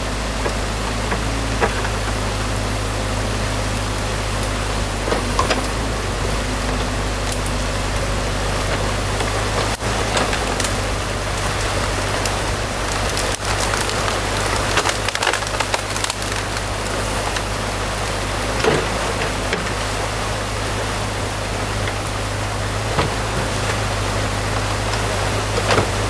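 Compact excavator's diesel engine running steadily while its bucket tears into a beaver dam, with sticks and branches cracking and snapping now and then. Water rushes through the opened dam.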